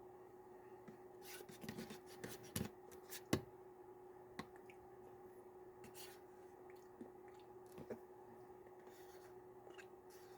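Faint clicks and scrapes of a spoon against a plastic yogurt cup, a few sharper taps about a third of the way in, over a steady low hum.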